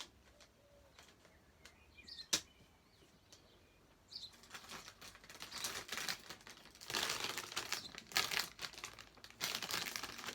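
A few faint clicks, then from about four seconds in, continuous crinkling and rustling of plastic being handled.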